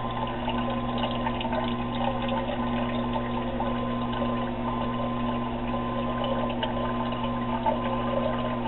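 Water running and splashing into a stainless-steel brew kettle as it fills, over the steady hum of a small electric pump.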